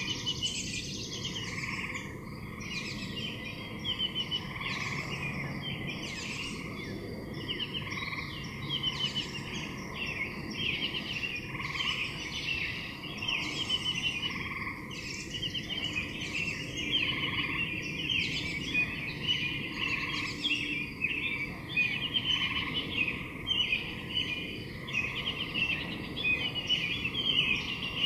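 A chorus of water frogs croaking: rapid rattling calls overlapping one after another without a break, louder in the second half.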